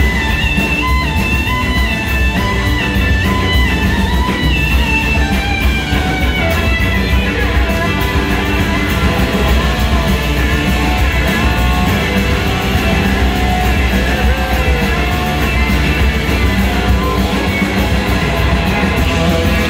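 Live blues-rock band playing loud and steady, heard from the audience: an electric guitar lead line over drums, bass guitar and keyboards.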